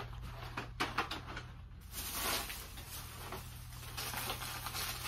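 Small packaged party favours being handled and set down: a few light clicks in the first second, then a brief rustle of plastic wrapping about two seconds in. A faint steady low hum runs underneath.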